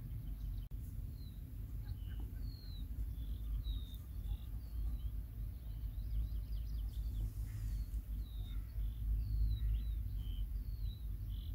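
Small birds chirping and singing, many short high calls and trills, over a steady low rumble.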